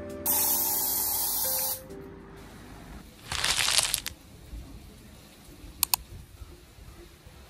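Aerosol air freshener (Air Wick can) sprayed in one steady hiss lasting about a second and a half, over soft background music. A second loud rushing burst follows about three seconds in, then two quick clicks.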